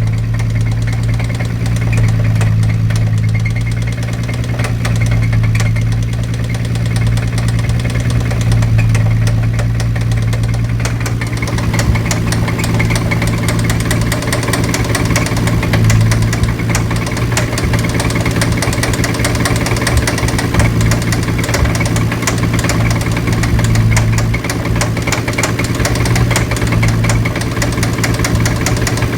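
Nissan 350Z's 3.5-litre V6 engine running at a steady speed with a rapid, continuous knock, the sign of a spun bearing. The clatter grows harsher about eleven seconds in.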